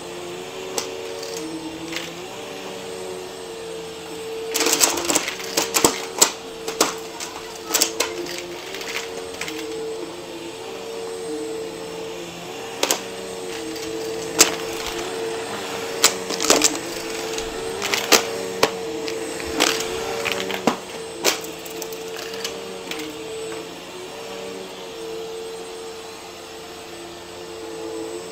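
Bagless upright vacuum cleaner running steadily while coins are sucked up, clinking and rattling against its plastic dust bin as scattered sharp clicks, in two busy stretches in the middle.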